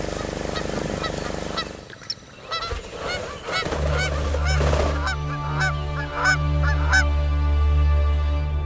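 A flock of seabirds calling, a quick run of many short harsh calls. A motorboat engine hums until it cuts out about two seconds in, and background music with a low drone comes in under the calls a couple of seconds later.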